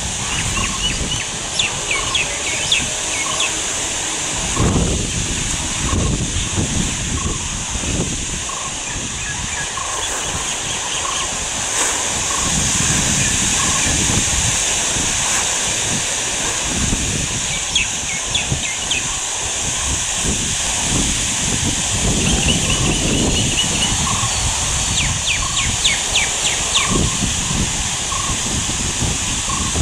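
Outdoor ambience: wind gusting on the microphone in low rumbles under a steady high hiss, with repeated short bird chirps and calls throughout.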